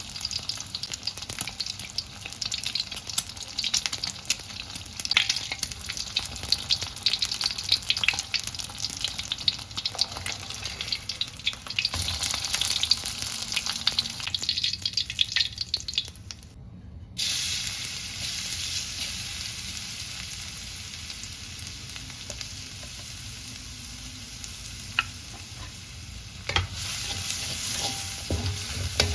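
Food frying and sizzling in a pan, with a spatula stirring and scraping against the pan in frequent short clicks. The sound drops out for a moment a little past halfway, then the frying carries on.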